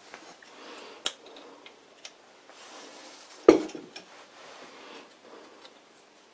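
Cast-iron lathe slide parts handled against each other, metal on metal. There are a couple of light clinks, then one sharp clank about three and a half seconds in.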